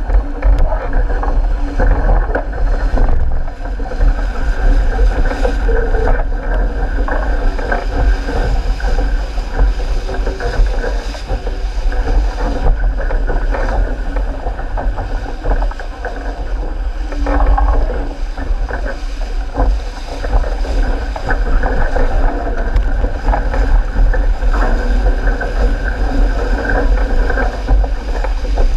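Wind buffeting a boat-mounted action camera's microphone, a continuous heavy rumble over the rush and splash of water along an RS800 skiff's hull as it sails fast under spinnaker.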